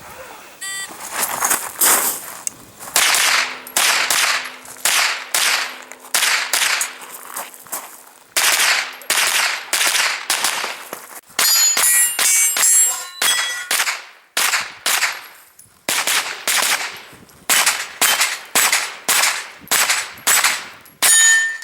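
Pistol-caliber carbine fired in quick strings of shots, dozens of rounds with short pauses between groups, with steel targets ringing when hit in the middle and near the end.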